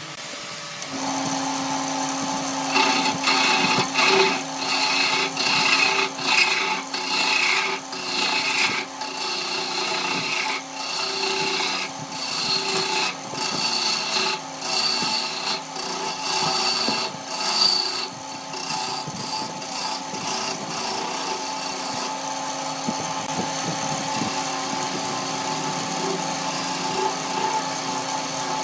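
Wood lathe running with a steady motor hum while the spinning wooden blank is worked by hand: a series of rasping strokes, about one or two a second, from a few seconds in, settling into steadier rubbing in the second half.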